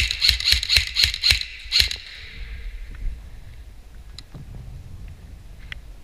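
Airsoft rifle firing a quick string of about seven shots, roughly four a second, then stopping after about two seconds. A few faint single clicks follow near the end.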